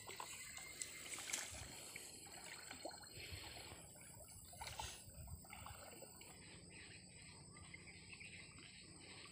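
Faint sloshing and trickling of muddy river water around a person wading knee-deep, with a couple of light knocks.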